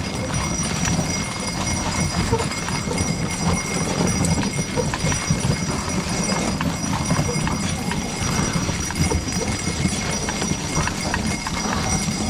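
Hooves of a pair of harnessed driving horses on a packed snow track: a steady, irregular run of muffled footfalls as the team moves along.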